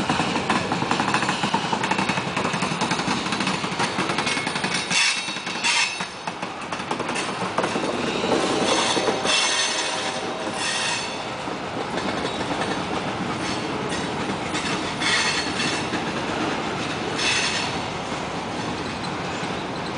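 Freight cars of a long CSX train rolling past: a steady clatter of wheels over the rail joints, with several brief high-pitched metallic squeals.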